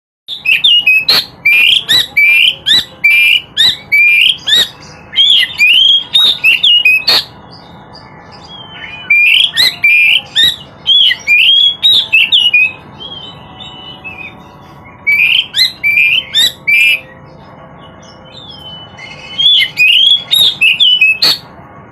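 Oriental magpie-robin (kacer) singing loudly in four bouts of quick, repeated upswept whistled notes mixed with harsh clicks, with short pauses holding softer notes between the bouts.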